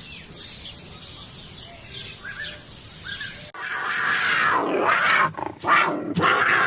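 Faint bird chirps, then, about three and a half seconds in, a sudden cut to a large animal's loud, rough growling calls, several in a row.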